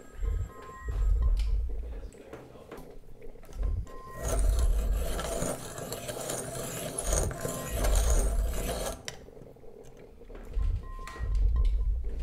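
Hand-cranked metal pencil sharpener grinding a wooden pencil: a steady rasping whir for about five seconds in the middle. Deep, low thuds pulse underneath every couple of seconds.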